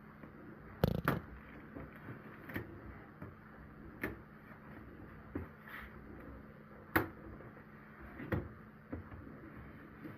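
Hands handling and cutting open a cardboard accessory box: scattered sharp knocks and clicks, the loudest about a second in and near seven seconds.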